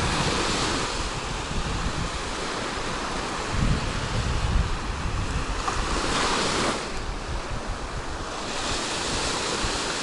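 Black Sea surf: small waves breaking and washing up a sandy shore, swelling and easing as each wave comes in, with wind gusting on the microphone.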